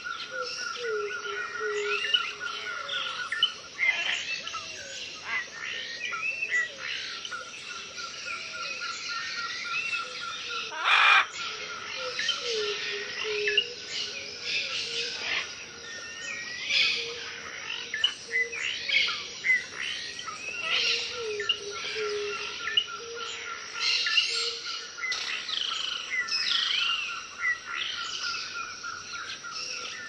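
A dense forest chorus of many birds chirping and calling over one another, with a steady fast-pulsing trill beneath and a lower, downward-hooked call repeating about once a second. A brief rushing burst of noise stands out about eleven seconds in.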